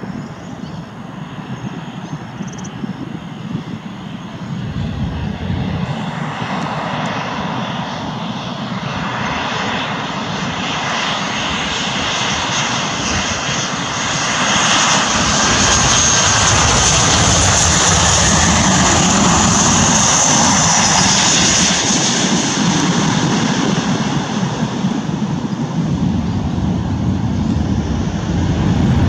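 Boeing 737-800's CFM56-7B turbofan engines on landing approach, growing steadily louder as the airliner comes in low. Their high whine peaks and slides down in pitch in the middle as it passes, and the noise swells again near the end as the jet is on the runway.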